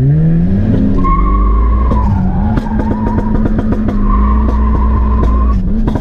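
Modified 300-horsepower Tofaş Doğan SLX engine at full throttle, heard from inside the cabin. The revs climb through the first second, then hold nearly level with a high whine over them and a run of rapid crackles in the middle. Near the end the revs drop and start climbing again, as in a gear change.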